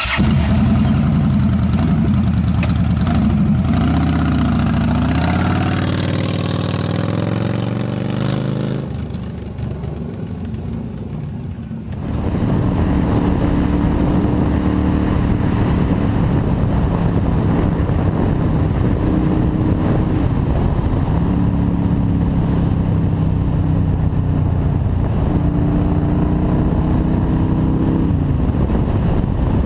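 Yamaha XVS 1300's V-twin engine running through its exhaust, revved so the pitch rises and falls, then settling lower. About twelve seconds in the sound changes abruptly to another stretch of the engine running at a steadier speed, its pitch climbing and dropping a few times.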